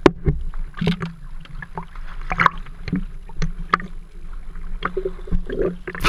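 Small waves slapping and splashing against a camera housing held right at the water surface, in many short irregular splashes over a low steady hum. Near the end water washes over the camera in a louder, fuller splash.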